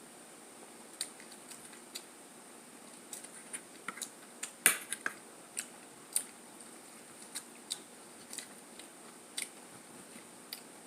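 A person chewing food close to the microphone: scattered soft clicks and crunches, the loudest about halfway through.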